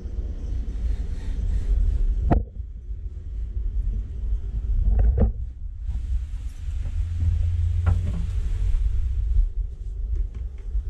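A steady low rumble, with three sharp knocks about two, five and eight seconds in: a person clambering down into a sailboat's cockpit locker and bumping about in the tight fibreglass space.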